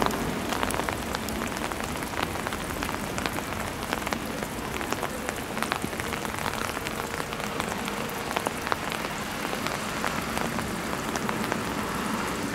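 Steady rain, with many separate drops clicking sharply close to the microphone.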